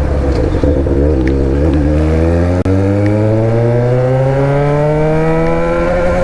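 Yamaha XJ6's 600 cc inline-four engine with an aftermarket Atalla exhaust, running under way. After a very brief break about two and a half seconds in, its note rises steadily as the bike accelerates.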